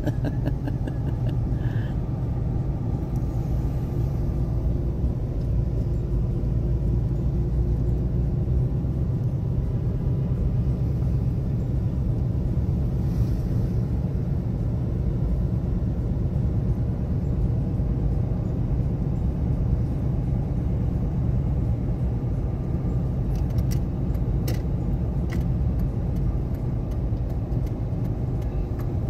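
Steady low road and engine rumble of a car driving slowly, heard from inside the cabin, with a few light clicks near the end.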